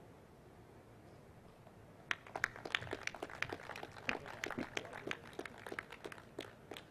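Sparse audience applause: distinct hand claps begin about two seconds in after a quiet stretch and carry on unevenly, several a second.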